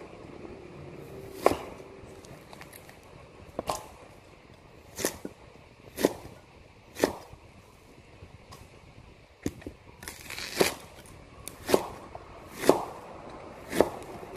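Kitchen knife cutting raw bamboo shoots on a cutting board: about ten sharp chops, roughly one a second, slightly irregular.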